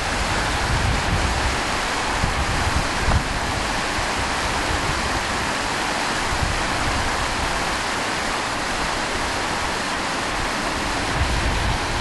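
Steady rush of a spring-fed stream running over rocks, with gusts of wind buffeting the microphone near the start and again near the end.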